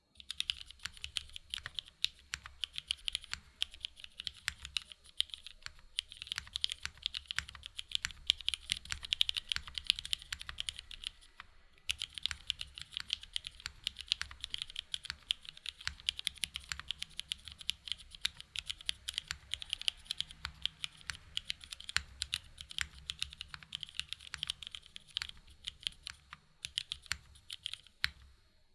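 Typing on a mechanical keyboard with vintage 1990s Cherry Old Black linear switches in an aluminium plate, built without foam: a fast, continuous run of key clicks with a few brief pauses.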